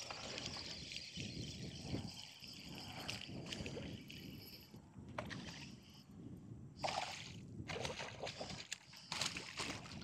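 Spinning reel being cranked over a light wash of wind and water. Then a hooked largemouth bass thrashes at the surface beside the boat, splashing loudly in two bursts near the end.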